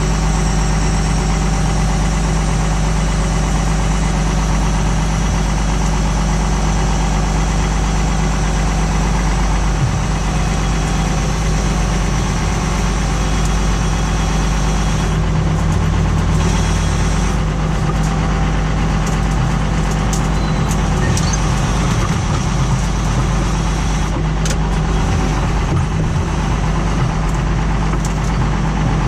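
Tractor engine running steadily under load while pulling a plough, a few light clicks in the second half.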